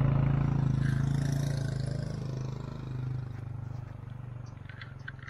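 A motorcycle engine running with a steady low hum, fading gradually over the few seconds as the bike rides away.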